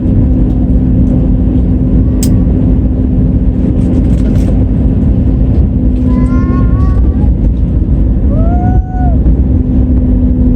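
Airbus A320 airliner's engines and airflow: a loud, steady rumble with a constant low hum.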